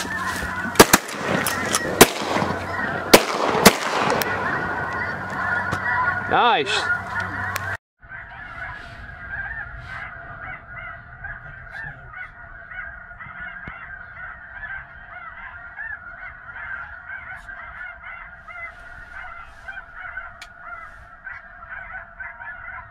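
A dense chorus of snow goose calls, with four loud shotgun shots in the first four seconds. After a brief break about eight seconds in, the goose calling goes on steadily and more quietly.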